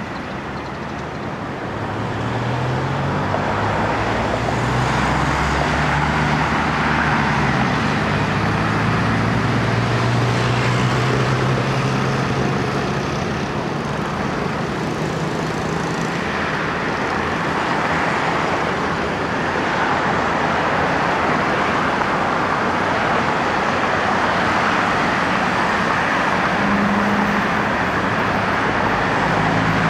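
Aircraft engines on a runway: a loud, steady roar that swells about two seconds in, with low droning tones that rise and fall.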